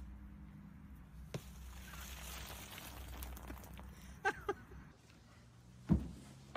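Wind rumbling on the microphone outdoors, with a few short squeaks about four seconds in and one heavy thump near the end.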